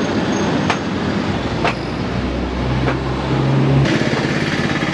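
Busy roadside traffic noise, with a motor vehicle's low engine hum passing through the middle, and three sharp knocks about a second apart.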